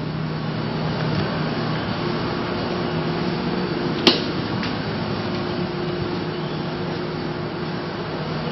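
A steady mechanical hum over hiss, with one sharp click about four seconds in.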